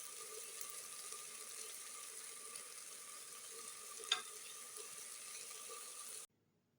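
Food sizzling in hot oil in a cooking pan, a steady sizzle with one sharp click about four seconds in; it cuts off suddenly near the end.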